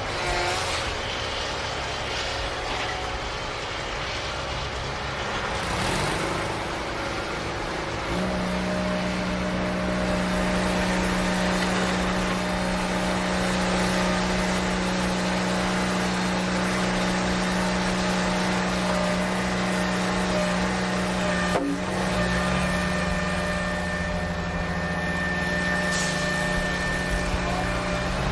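Toy vehicle running with a steady engine-like hum. Its pitch steps up and strengthens about a third of the way in and shifts again after a sharp click near the end.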